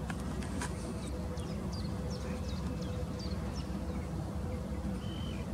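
Quiet lakeside ambience: a steady low rumble with a faint steady hum, and birds calling in short, thin, high chirps that fall in pitch. The chirps come in a quick run starting about a second and a half in, with one lower call near the end.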